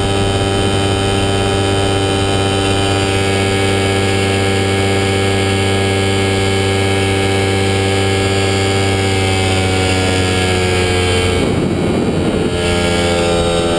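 Ultralight aircraft engine and propeller running at a steady cruise, with wind rush over an onboard camera. About eleven and a half seconds in the tone breaks up for about a second, then settles back at a slightly lower pitch.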